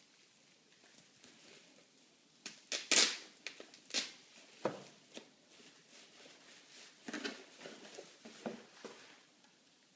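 Unboxed items and their packaging being handled: a run of sharp clicks and crinkles, loudest about three seconds in, with another cluster near the end.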